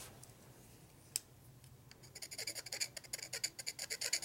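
Small pointed hand tool scraping layers of paint off the data tag on a Harley-Davidson 32E generator's steel housing. It sounds as rapid, short scratching strokes, several a second, starting about halfway through, after a single sharp click about a second in.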